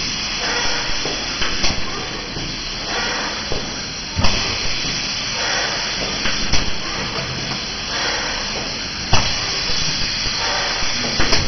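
Door durability tester cycling: its push-pull arm swings a cabinet door open and shut, giving a sharp knock about every two and a half seconds over a steady hiss.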